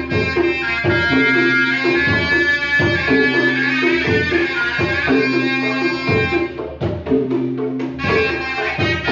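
Sundanese tarompet, a reed shawm, playing a held, nasal melody over steady drum beats; the melody breaks off briefly about two-thirds of the way through while the drums carry on, then comes back.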